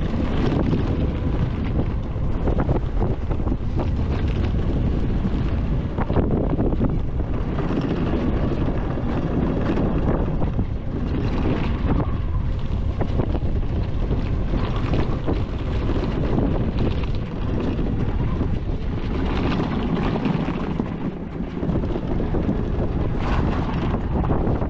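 Heavy wind noise buffeting the microphone during a ride on a HECHT 59399 electric ATV, over the low rumble of the quad moving across rough ground, with frequent small knocks.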